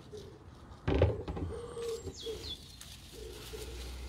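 A dove cooing in repeated low hoots, with a short loud rustling noise about a second in and a faint high falling bird whistle after it.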